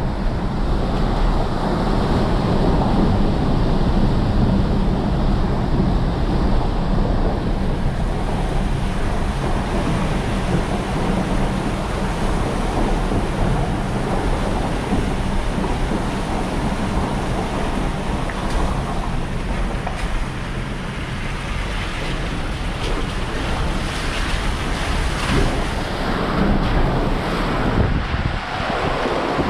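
A vehicle driving slowly through a wet tunnel: steady engine and tyre noise on the puddled floor, with scattered splashes and knocks in the second half.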